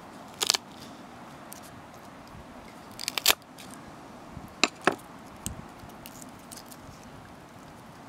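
The flat of a large knife blade is smacked down on garlic cloves on a wooden cutting board, crushing them. There are sharp knocks and crunches: one near the start, a quick cluster about three seconds in, and two more just before the five-second mark.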